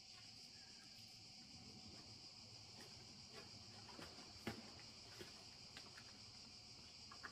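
Near silence: a faint steady high hiss with a few soft clicks and taps, the clearest about four and a half seconds in.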